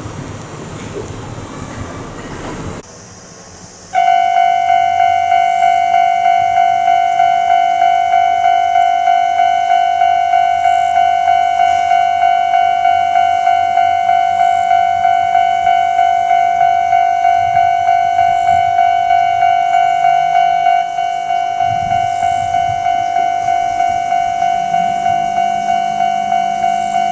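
A Japanese railway level crossing's electronic alarm starts about four seconds in: a single steady ringing tone struck about twice a second, each strike dying away. Before it, a train's running noise cuts off, and in the second half a low rising hum from a train runs beneath the alarm.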